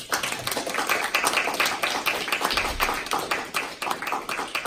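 A small audience applauding: a dense run of individual hand claps.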